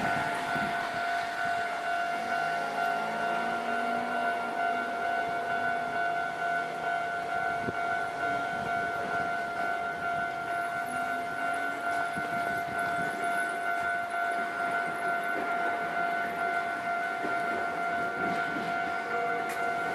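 Japanese railway level-crossing warning bell ringing continuously, a steady repeated electronic ding at one pitch, signalling that a train is coming.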